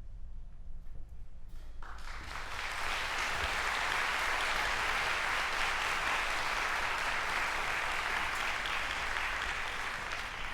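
Concert audience applauding, the clapping breaking out about two seconds in as the orchestral piece ends, quickly building and then holding steady.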